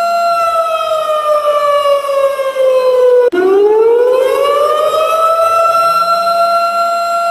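A siren wailing on a steady pitch slides slowly down for about three seconds, breaks off abruptly, then swoops back up to its steady pitch and holds it.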